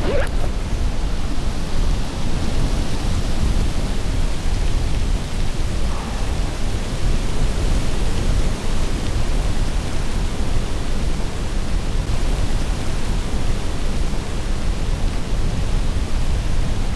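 Strong gusty wind buffeting the microphone: a loud, steady wash of noise, heaviest in the low rumble.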